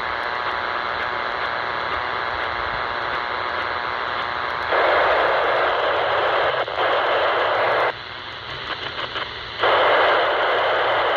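Receiver static hissing from a PNI Escort HP 82 handheld CB radio as its channels and bands are stepped through. The hiss jumps louder about four and a half seconds in, drops away for a second and a half near eight seconds, then comes back loud.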